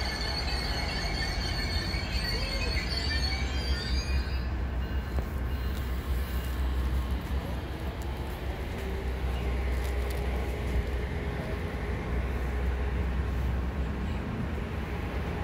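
Amtrak Cascades Talgo passenger train at the station: a thin, high squeal for about the first four seconds, then a steady low rumble.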